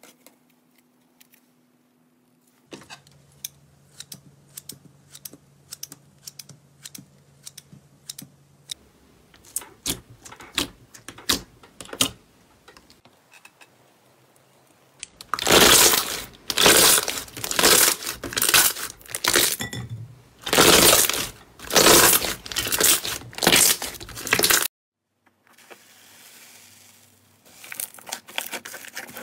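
Hands playing with slime, pressing and stretching it with small sticky clicks and pops. In the middle comes a run of loud crackling bursts about once a second. Near the end green foam slime crackles as it is squeezed.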